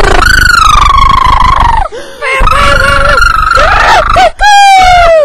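A person's voice making loud, high-pitched wordless squeals: three long calls, each sliding down in pitch at its end.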